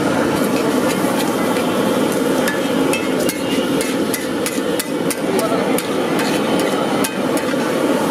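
Metal spatula clacking and scraping against a large flat iron griddle as scrambled egg bhurji is chopped and turned: a quick run of sharp, repeated clacks, about three to four a second and densest in the middle.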